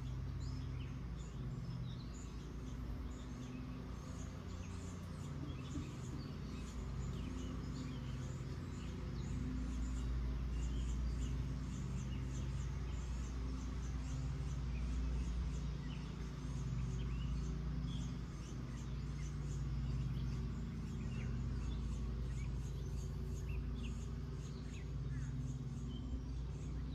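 Outdoor garden ambience: wild birds chirping in short, scattered calls over a steady low hum.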